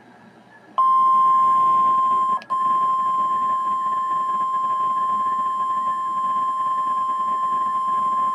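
NOAA Weather Radio 1050 Hz warning alarm tone, the signal that activates weather radio receivers, sent here as part of the weekly test. One loud, steady single-pitched tone starts about a second in after faint hiss, breaks with a click a little over two seconds in, then holds steady.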